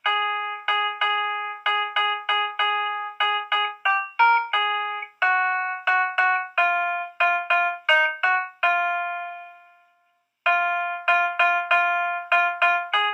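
Background instrumental music: quick repeated chords on a keyboard, each note struck and fading, with one longer note dying away into a brief pause about two-thirds of the way through before the chords resume.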